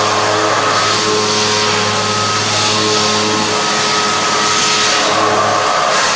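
CNC milling machine cutting metal with a carbide milling cutter: a steady mechanical whine made of several held tones over a bright hiss.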